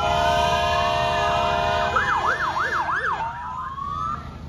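Emergency vehicle siren going through its patterns: a slow rising wail, then about two seconds in a quick up-and-down yelp of four sweeps, then rising again before it fades near the end. A steady pitched tone sounds under it for the first two seconds.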